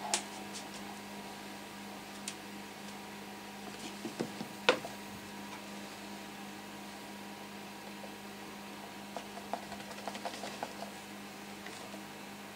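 A steady low hum under scattered light taps and clicks, with one sharper tap near the middle and a run of small clicks later on.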